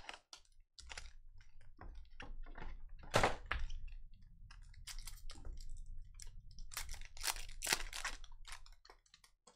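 Foil trading-card pack wrappers crinkling in a string of sharp crackles as the packs are handled and one is torn open, with a faint low rumble underneath.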